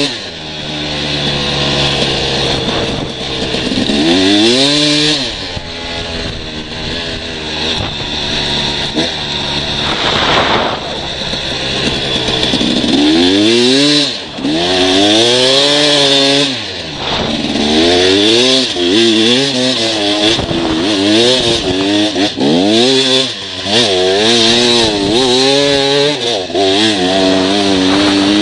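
Motorcycle engines revving up and down over and over, the pitch climbing and dropping about once a second through the second half, with a steadier stretch and a rushing surge in the first half.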